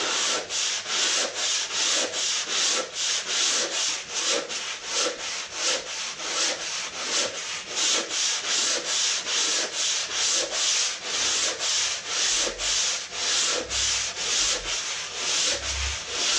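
Sandpaper on sanding blocks rubbed back and forth over a plastered wall, in a steady rhythm of about two to three strokes a second.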